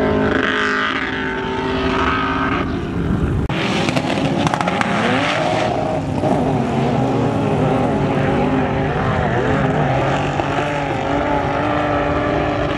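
Off-road engines revving hard on sand, the pitch rising and falling with the throttle. The sound changes abruptly about three and a half seconds in, from one vehicle to a sand buggy.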